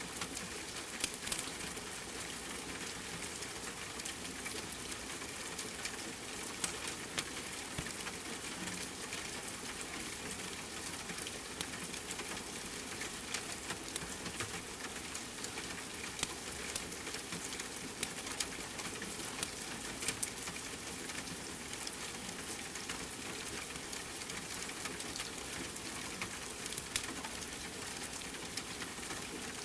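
Steady rain, with the scattered sharp pops and crackles of a wood fire burning in a fireplace.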